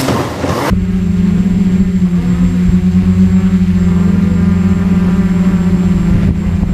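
Steady hum of a multirotor drone's propellers, picked up close by the camera it carries, with a slight waver in pitch. It cuts in abruptly just under a second in, replacing a rougher, noisier sound.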